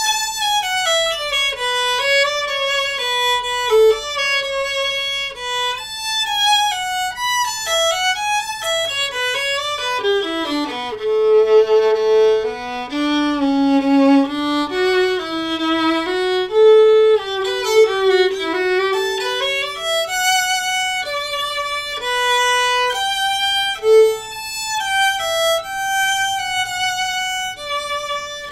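Solo violin, a Martin Kullick Model 300 with solid spruce top, flamed maple back and steel strings, bowed in a quick melodic passage full of scale runs. About ten seconds in the line drops to the low strings for several seconds, then climbs back to the upper register.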